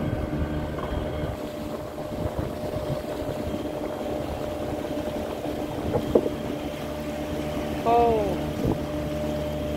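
Large fishing boat's engine running steadily under way, a constant drone. A voice exclaims "oh" about eight seconds in.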